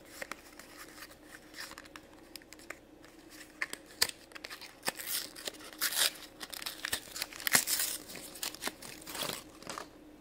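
Plastic blister packaging of a Shopkins basket toy crinkling, clicking and tearing as it is pried open by hand, sparse at first and louder and busier from about four seconds in.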